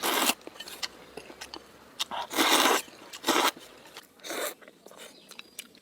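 Crunchy food being bitten and chewed close to the microphone: four separate crunches, the longest and loudest a little past two seconds in.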